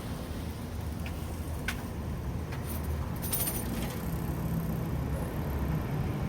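Steady low rumble of road traffic at a street crossroads, with a few faint clicks and a brief faint high rattle about three seconds in.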